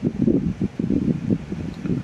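Low, crackly rustling as a small organza bag is handled and opened, with many short irregular crackles throughout.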